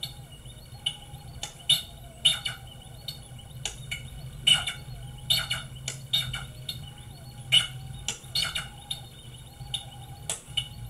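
DIY synthesizer making irregular sharp chirps and clicks, roughly one or two a second, some with a short pitch glide, over a steady low drone.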